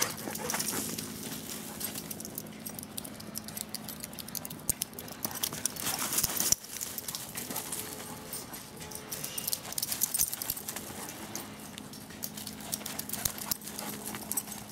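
An Afghan hound and a smaller dog running and chasing on packed dirt: quick, irregular patter of paws, with scattered sharp clicks.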